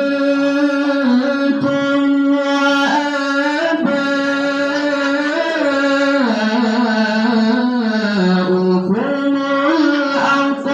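A single voice chanting the Quran in slow melodic recitation (tilawah), holding long notes and turning them with ornamented rises and falls in one long continuous phrase, with a short break near the end.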